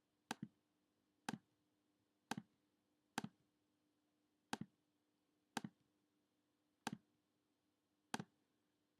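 Computer mouse clicking, eight single clicks about a second apart, each a quick press and release, over a faint steady hum.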